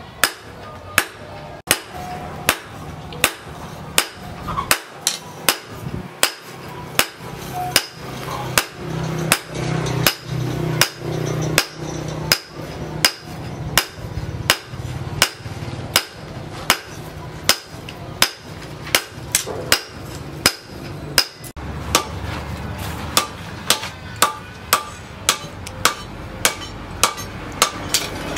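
Hand hammer forging a red-hot steel knife blade on an anvil: sharp metal-on-metal blows in a steady rhythm of about three every two seconds, each with a short ring.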